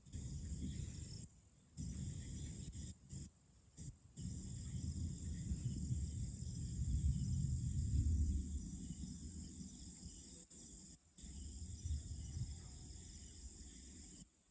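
Night insects chirring steadily in a high band, under a low rumble that swells to its loudest about halfway through and then eases. The whole sound cuts out briefly a few times.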